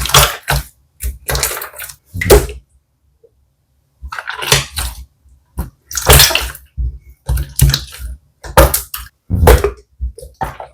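Slime being squeezed and pressed by hand: short, wet squelches with popping air bubbles, coming about once a second, with a pause of over a second about a third of the way in.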